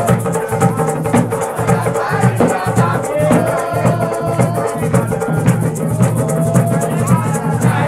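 Music: drums and a shaker rattle keeping a quick, steady beat under a singing voice that holds long notes.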